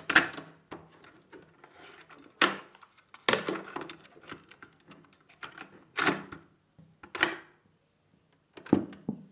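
Mechanical clicks and clunks from the cassette deck of an ITT Touring 120 radio-cassette recorder: the stop/eject key is pressed, the cassette is handled in and out of the deck and the door is shut, and the play key is pressed near the end. There are about six sharp clicks in all, spaced a second or more apart.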